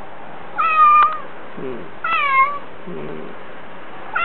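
Domestic cat meowing repeatedly in its lonely crying: loud, high meows that fall slightly in pitch, about one every second and a half, with quieter, lower calls in between.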